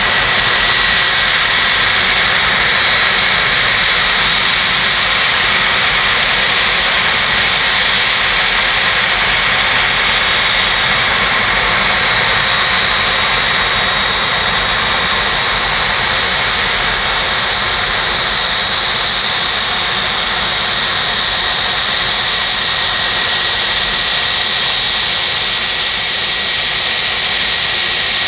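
Boeing 757-200's twin jet engines running at low taxi power as the airliner rolls in toward the gate: a loud, steady jet rush with a high, steady whine.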